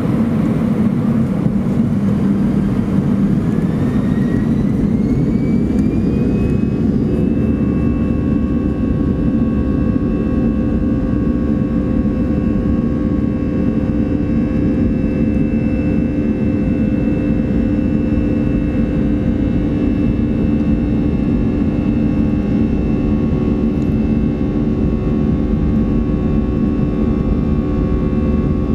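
Airbus A320 jet engines heard from inside the cabin over the wing: a steady heavy rumble, with a whine that rises in pitch a few seconds in as the engines spool up, then holds steady.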